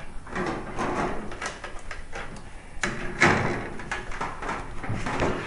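Rigid plastic tanning-bed cover parts being handled and fitted together: irregular scraping, sliding and clicking, with a sharper knock about three seconds in.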